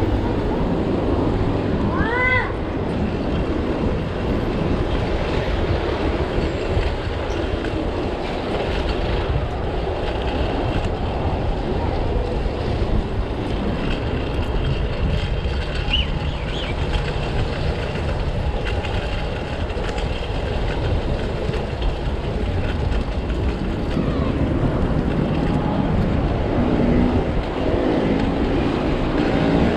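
Steady rumble of street traffic and rolling, wind-buffeted riding noise heard while following a fixed-gear racer through city streets, with a short high-pitched squeal about two seconds in.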